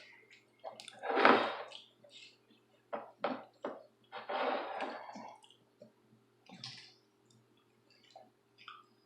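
A few short bursts of close-up eating and table noise, the loudest about a second in and again around four to five seconds in, over a faint steady hum.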